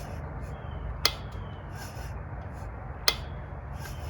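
Two sharp ticks about two seconds apart from the top end of a 2002 Polaris Magnum 500 engine as its clutch is rocked forward and back by hand, over a steady low hum. The tick is taken for the source of the engine's knock, which the mechanic suspects comes from the top end cover.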